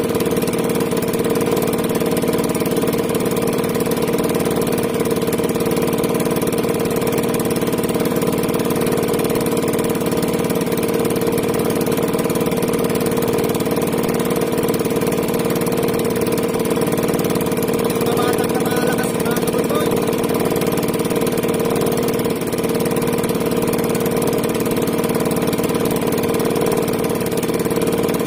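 A small engine aboard a bamboo-outrigger fishing boat running steadily: a constant, unchanging drone.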